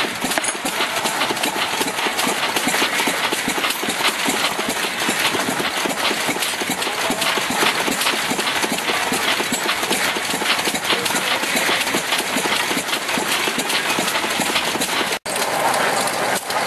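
Old engine-driven metal shear running with a fast, steady mechanical clatter while a sheet of metal is fed through its blades. A brief gap near the end.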